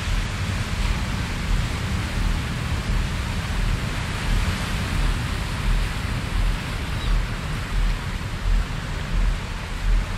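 Relaxation soundtrack of steady rushing noise, with soft low pulses repeating underneath about once a second.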